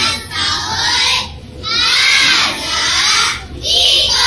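A group of schoolgirls reciting loudly in unison, chanted in sing-song phrases about a second long with short breaths between: Arabic choral speaking (kalam jama'i).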